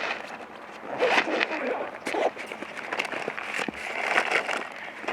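Irregular rustling, clicks and knocks of camping gear and supplies being handled and unpacked.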